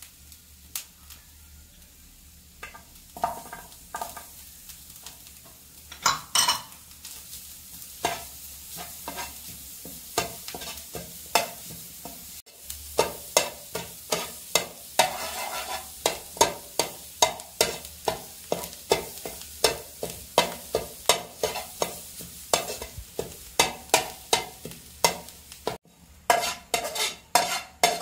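A metal spatula stirring grated coconut and garlic as they dry-roast in a nonstick frying pan: repeated scrapes and taps against the pan over a light sizzle. The strokes are sparse at first, then come steadily at about two a second from around halfway through.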